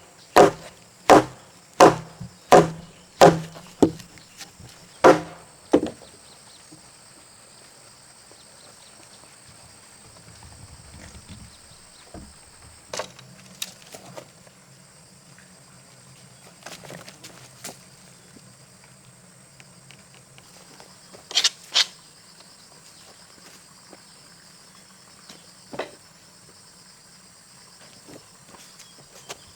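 A tool striking timber: about nine sharp blows, roughly two a second, over the first six seconds, then a few scattered knocks, including a quick double knock about two-thirds of the way in. Insects buzz steadily in the background.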